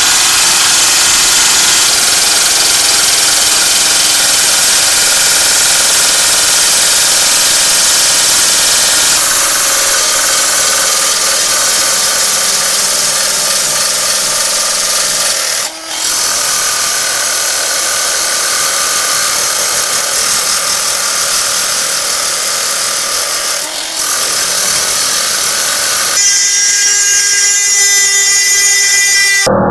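A power tool running steadily with a hissing, abrasive-sounding noise, easing off briefly twice, about two-thirds of the way in and again about four-fifths of the way in.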